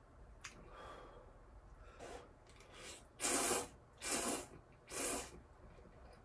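A person slurping ramen noodles: three loud slurps about a second apart, after a few softer breathy sounds.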